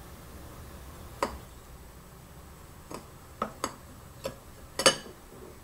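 Light, irregular clicks and taps of kitchen utensils against a bowl or bottle while ingredients are added, about six in all, the loudest near the end.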